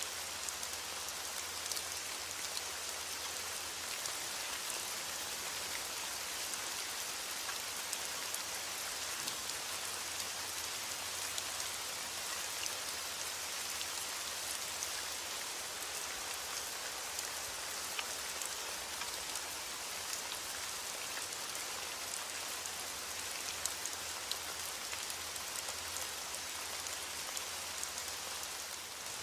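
Heavy rain falling steadily on a window, with many small ticks and clicks scattered through it and a faint low rumble underneath.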